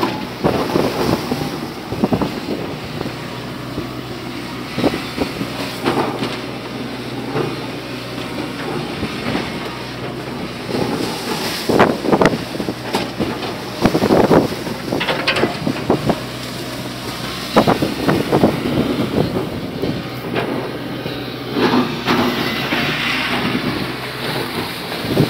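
Wind buffeting the microphone over a steady low engine hum, with irregular knocks and thumps, clustered about halfway through.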